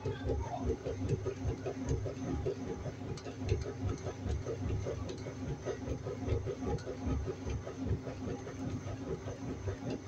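Washing machine running: a continuous, uneven churning of low pulses, with a few faint clicks.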